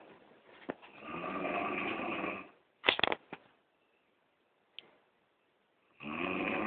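Heavy snoring: two long, rattling snores about four seconds apart, each about a second and a half. A brief sharp noise about three seconds in is the loudest thing.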